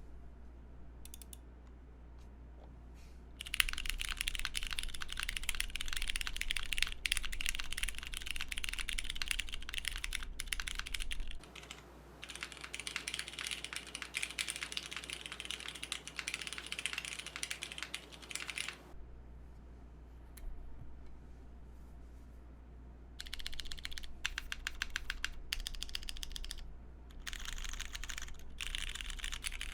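Typing on a Silvia custom mechanical keyboard with lubed Cherry MX Clear tactile switches in a full aluminium plate, o-ring mounted. After a few light taps, about 15 seconds of fast continuous key presses follow, then a pause of a few seconds and shorter bursts of typing near the end.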